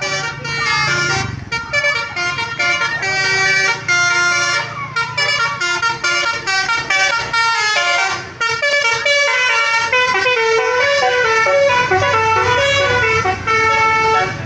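Bus's multi-tone 'telolet Basuri' horn playing a quick melody, one short note after another in stepping pitches. A low engine hum sits underneath at the start and again near the end.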